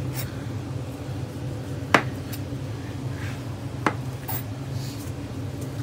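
Butcher's knife trimming fat from a beef top round on a cutting board: a few sharp clicks of the blade against the board, the loudest about two seconds in and another near four seconds, with faint scraping between, over a steady low hum.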